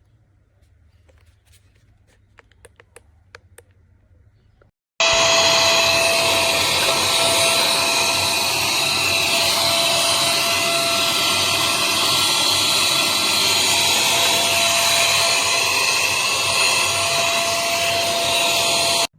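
Tiazhan 9000 Pa cordless handheld vacuum cleaner running: a loud, steady rushing hiss with a constant whine, starting abruptly about five seconds in and cutting off suddenly near the end. A few light clicks come before it.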